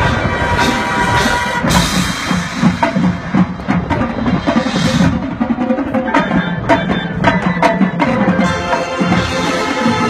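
Marching band playing a field show: sustained wind chords over front-ensemble pit percussion, with frequent sharp drum and mallet strikes and cymbal washes.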